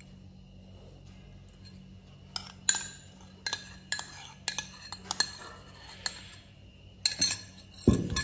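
A metal spoon clinking and scraping against a ceramic bowl while thick nettle soup is spooned out of it onto a plate. A run of sharp clinks starts about two seconds in, and a heavier knock comes near the end.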